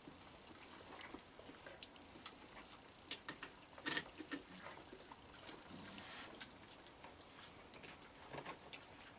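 Raccoons eating dry kibble on a wooden deck: faint, scattered crunching and clicking, with a couple of louder clicks about three and four seconds in.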